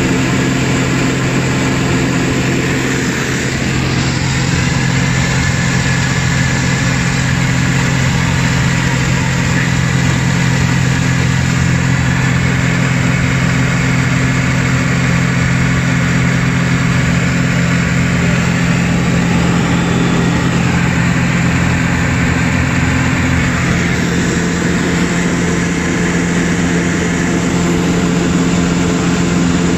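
ULPower UL350iSA 130 hp flat-four aero engine and propeller running steadily at cruise power, about 2,600 rpm, heard inside the cockpit as an even drone with a steady hiss over it.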